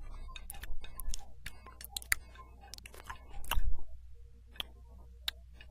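Cutlery clinking on plates as people eat: a scatter of irregular sharp clicks, with a longer, louder clatter about three and a half seconds in.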